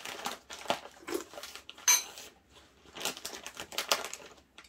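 Spoons and chopsticks clicking and scraping against ceramic bowls at a meal table, a quick run of small knocks with one loud ringing clink about two seconds in.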